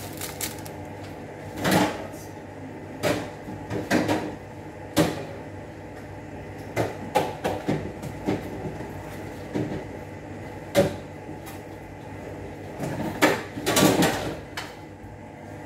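Irregular knocks and bumps of groceries and containers being moved and set down in a kitchen, with the loudest cluster near the end, over a steady low hum.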